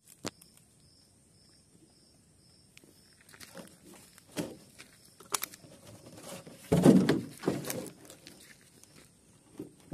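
Rustling and footsteps, nearly quiet for the first three seconds, then scattered clicks and rustles with a couple of louder thumps about seven seconds in.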